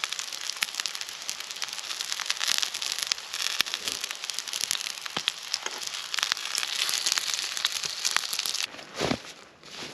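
Dense crackling and popping from breakfast cooking over a campfire, a steady hiss full of small pops, which cuts off suddenly near the end.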